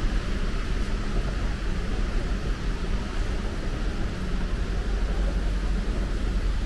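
Steady background noise of a large airport terminal hall: an even low rumble with a hiss over it, no distinct events.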